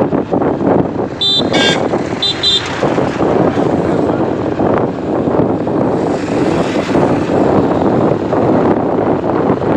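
Passenger train running, a loud steady rumble and rattle heard from inside the coach. Two brief groups of short high-pitched chirps come a little over a second and about two seconds in.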